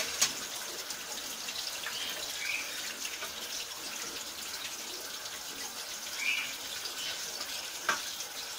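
Steady faint hiss of running water, with a couple of faint short chirps and a light click near the end.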